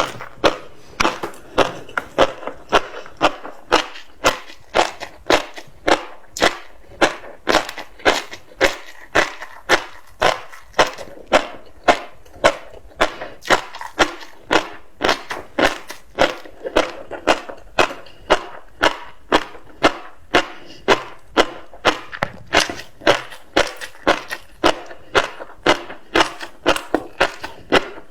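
Close-miked chewing of tobiko (flying fish roe), with a crisp crunch about twice a second as the eggs pop between the teeth.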